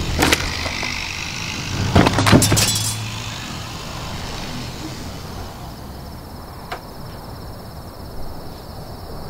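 Several sharp knocks or clatters, the loudest about two seconds in, over a low rumble that fades soon after. From about halfway, crickets chirp in a steady high trill.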